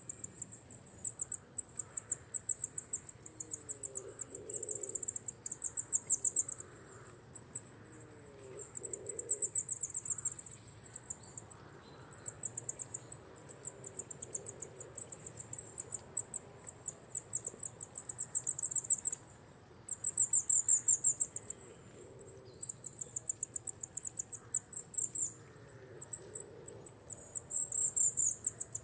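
Insect stridulation, a very high, rapid pulsing trill going on almost without a break and swelling and fading every few seconds.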